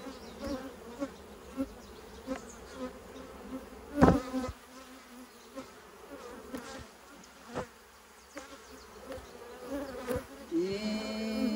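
Honeybees buzzing steadily around an open hive, with a few sharp knocks as a heavy honey frame is worked loose; the loudest knock comes about four seconds in. A louder, closer buzz swells up near the end.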